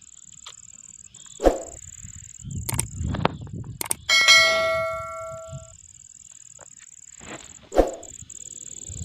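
A bell-notification 'ding' sound effect rings about four seconds in and fades out over a second and a half, over a steady high insect drone. Before it come a sharp knock and a burst of rustling, and another sharp knock comes near the end.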